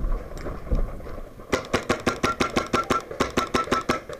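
Paintball marker firing a fast, even string of shots, about six or seven a second, starting about a second and a half in, each shot a sharp pop with a short ringing note. Before it come a couple of dull knocks.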